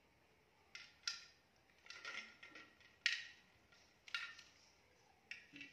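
Plastic toy fishing rods clicking and rattling, likely the reel being cranked, in about seven short, irregular bursts.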